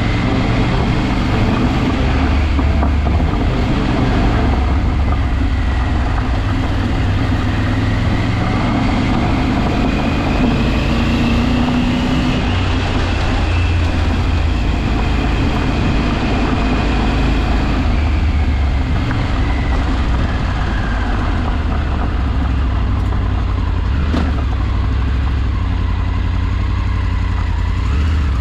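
A motor vehicle driving, its engine running steadily with a heavy low rumble and a faint whine that slowly rises and falls in pitch.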